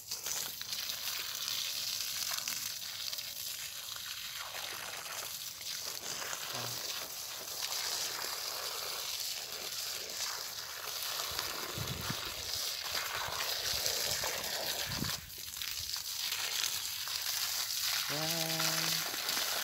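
Water from a garden hose spraying onto plants and soil: a steady hissing splash that continues throughout.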